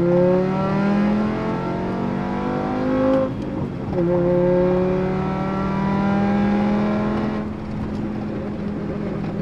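VW Golf Mk6's 2.5-litre five-cylinder engine pulling hard in second gear, heard inside the cabin, its note rising steadily. About three seconds in the revs drop for an upshift, then climb again more slowly in the next gear until the throttle is eased off near the end.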